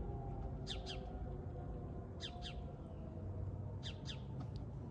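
A small bird chirping: pairs of quick downward-sweeping chirps repeated about every second and a half.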